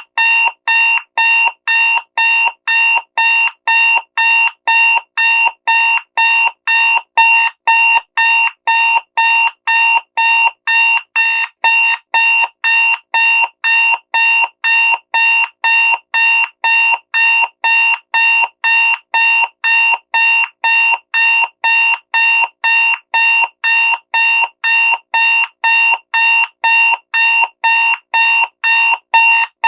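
Digital alarm clock beeping loudly: short, identical electronic beeps repeating evenly at about two a second.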